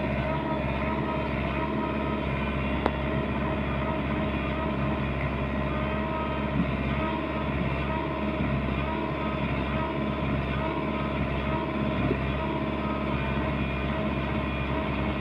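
Diesel engine of heavy earth-moving machinery running steadily, with a brief click about three seconds in.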